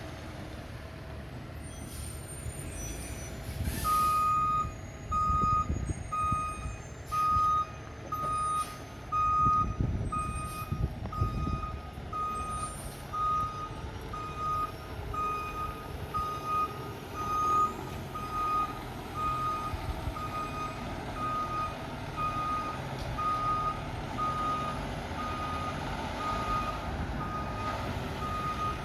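Fire truck backing up: its reversing alarm starts about four seconds in and beeps steadily, a little faster than once a second, over the low running of the truck's engine.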